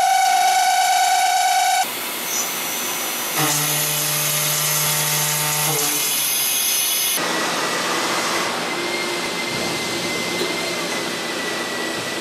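Hwacheon M4-5AX five-axis machining center cutting carbon steel. An end mill cuts with a steady whine that breaks off about two seconds in. Then comes face milling with a high whine over a low hum, and from about seven seconds in a noisier tapping cut in coolant, with a faint steady tone.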